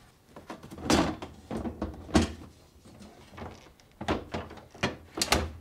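Whirlpool refrigerator's plastic bottom freezer drawer being set onto its metal drawer slides and pushed in: a series of separate plastic knocks and clacks, the loudest about a second in and two close together near the end.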